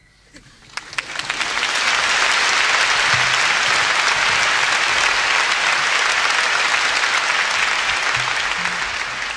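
Live concert audience applauding as a song ends. A few scattered claps swell into full applause within about two seconds, which holds steady and starts to fade near the end.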